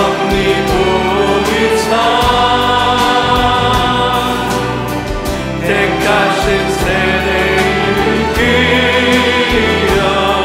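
Mixed choir of men's and women's voices singing a contemporary Korean worship song together over a band, with long held, vibrato-laden lines above a steady drum beat and bass.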